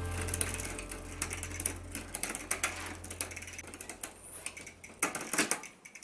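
Bicycle drivetrain clicking and ticking as the pedals are turned: the chain rattles over the rear sprockets while the derailleur is being adjusted to shift it onto the largest sprocket.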